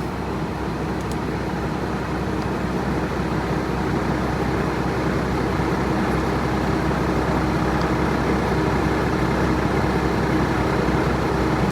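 Diesel engine of a 2020 Peterbilt 579 semi truck idling steadily.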